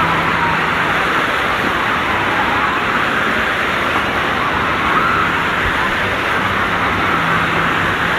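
Wave pool surf washing up onto a shallow beach in a steady rushing roar, with the faint voices of a crowd of swimmers mixed in.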